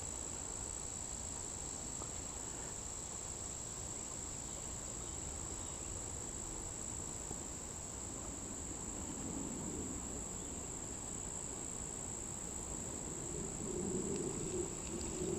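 Insects calling in a steady, unbroken high-pitched drone that does not vary, over a faint even background hiss; a soft low rumble rises briefly about nine seconds in and again near the end.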